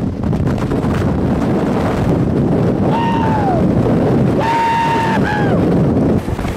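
Strong wind from a nearby tornado buffets the microphone in a loud, steady rush. About three seconds in and again at four and a half seconds, two brief high-pitched wails each hold a tone and then drop away.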